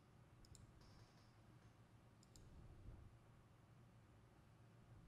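Near silence, with a few faint computer mouse clicks as measurement points are placed.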